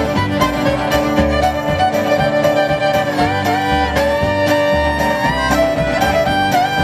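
Live fiddle playing a gliding, sustained instrumental melody over strummed acoustic guitar, in a bluegrass–country style.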